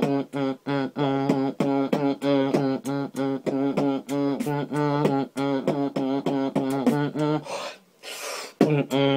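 Vocal beatboxing: a steady hummed bass note held at one pitch under a fast, even beat of mouth clicks and snares. About seven and a half seconds in, the hum stops for a second of breathy hissing, then the hum and beat start again.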